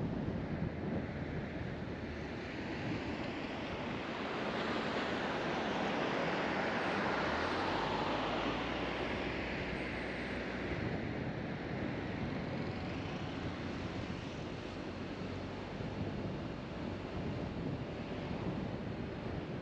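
Road and wind noise of a car driving along: a steady rushing hiss that swells for several seconds in the middle and then eases off.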